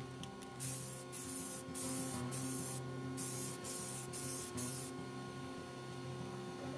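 Rust-Oleum 2X flat grey primer aerosol can spraying in short hissing bursts, about eight in quick succession, then pausing near the end, over a steady low hum.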